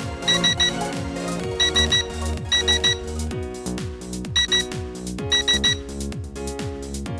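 Electronic dance music with a steady kick-drum beat, punctuated by quick groups of three short, high beeps in time with the beat.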